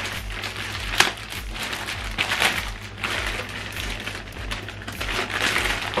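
Clear plastic bag being handled and pulled open, crinkling, with a sharp snap about a second in.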